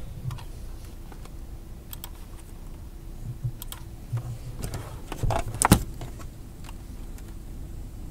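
Scattered clicks of a computer keyboard and mouse, a handful spread over several seconds with the loudest a little past halfway, over a faint low hum.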